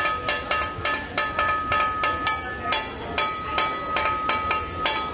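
Metal spatula tapping rhythmically on a steel teppanyaki griddle, about three to four sharp clinks a second, with a ringing metallic tone that carries through the strikes.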